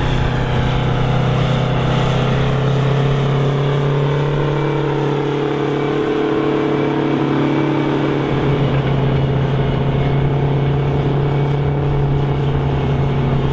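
Big farm tractor's engine running steadily while pulling a plow: a loud, steady low drone with no breaks.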